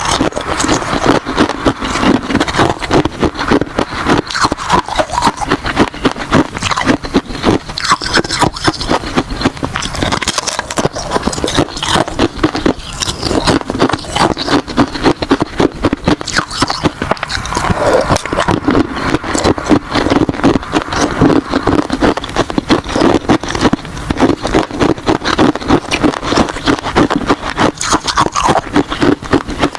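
Close-up crunching of ice being bitten and chewed: a steady, dense stream of sharp crackling crunches, several a second, with no pause.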